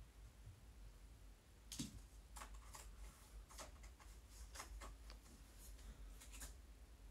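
Faint handling noises while hair is being styled: a string of short, irregular rustles and light clicks, starting about two seconds in.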